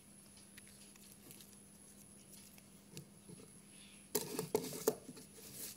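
Faint room tone, then about four seconds in a short burst of rustling and scratching from a strip of homemade paper double-sided tape being handled and pressed against a sheet of paper, with a smaller scrape near the end.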